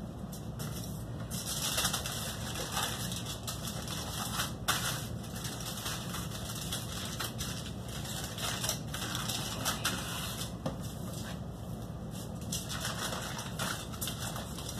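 Aluminium foil crinkling and crackling irregularly as it is folded and pressed around portions of raw salmon, over a steady low hum.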